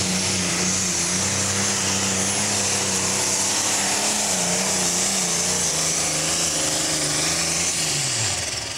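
Pro stock pulling tractor's turbocharged diesel engine running flat out under load as it drags a weight-transfer sled, with a steady high whine over the engine note. Near the end the engine note falls away and the sound drops off.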